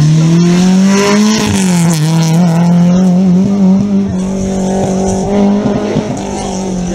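Rally car's engine revving hard as it accelerates, the pitch rising and then dropping sharply at a gear change about a second and a half in, then holding a steady note at full throttle as the car pulls away and slowly fades.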